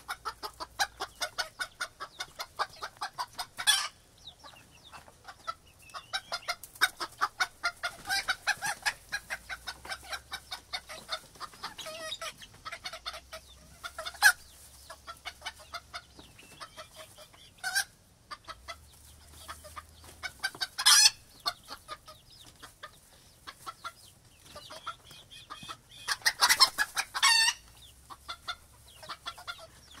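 A flock of chickens in a coop clucking, with many short clucks in quick runs and several louder single calls. About four seconds from the end, one longer, louder call stands out.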